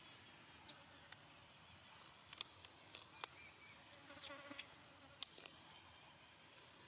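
Near silence with a faint steady hiss, broken by a few sharp clicks and a short wavering buzz about four seconds in.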